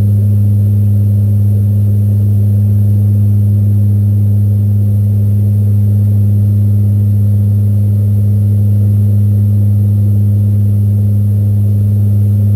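Steady, deep drone of a C-130 Hercules' turboprop engines and propellers, heard from inside the cabin in cruise, a constant low hum with a second tone above it and no change in pitch.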